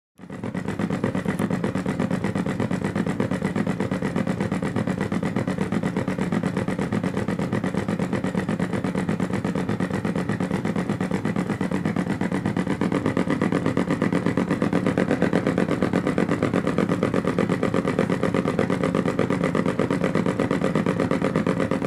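Synthetic engine sound from two function generators, one generator's output modulating the other's frequency, played through a small desktop speaker: a steady, rapidly pulsing low drone like an idling engine. It starts suddenly and holds without change.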